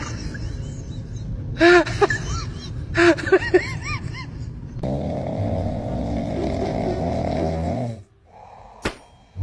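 An animal's short squeaky calls, rising and falling in pitch, in three quick groups, followed by about three seconds of a steady snore-like noise.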